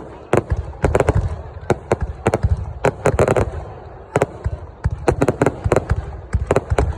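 Fireworks going off: a dense run of sharp bangs and cracks, several a second and irregularly spaced, over deep rumbling booms.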